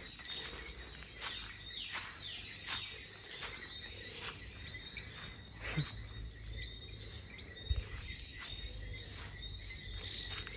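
Outdoor ambience: insects chirping with a steady high tone and birds calling, over regular footsteps on grass and dirt, about one and a half steps a second.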